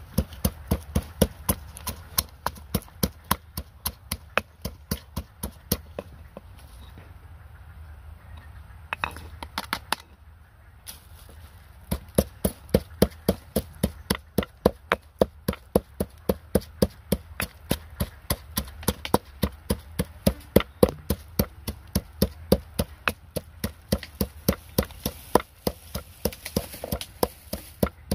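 A pestle pounding red chilies in a mortar, with sharp knocks at about three a second. The strokes thin out for a few seconds near the middle, then resume strongly.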